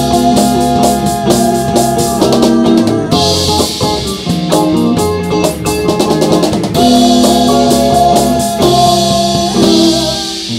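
Live band playing: electric guitar holding sustained notes over electric bass and a drum kit with cymbals, loud throughout.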